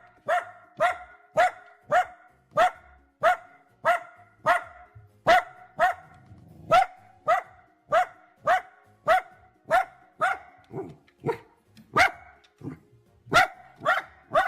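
Dachshund giving short, high barks in a steady, regular string, about one every half second or so. The barks are excited and happy, a dog barking with pleasure while being petted.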